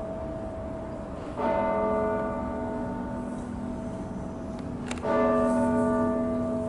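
Large church bell tolling: two strikes about three and a half seconds apart, each ringing on with a rich hum of overtones that slowly fades.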